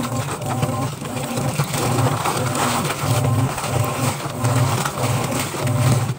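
Washing machine agitating a sudsy load of clothes: the motor hums in regular pulses, about one every 0.7 seconds, as the drum churns, with soapy water and wet fabric sloshing throughout.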